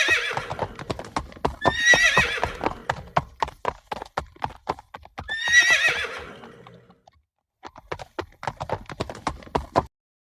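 A horse neighing three times, each a quavering whinny that falls in pitch, over the steady clip-clop of its hooves, which carries on alone until the sound stops near the end.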